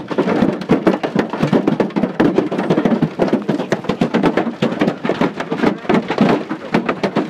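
Hail larger than golf balls pounding the outside of an airliner, heard from inside the cabin as a loud, dense, irregular barrage of hard impacts with no let-up. The strikes are damaging the aircraft.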